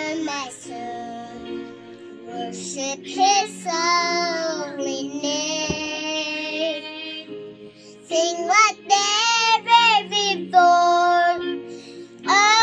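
A young girl singing a melody in phrases with long held notes, over a quiet backing track that carries on between her phrases.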